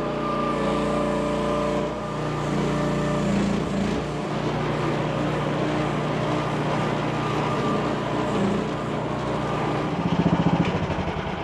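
Mini excavator's replacement Predator gasoline engine running, its pitch shifting every second or two as the machine works. About ten seconds in it grows briefly louder with a fast pulsing beat.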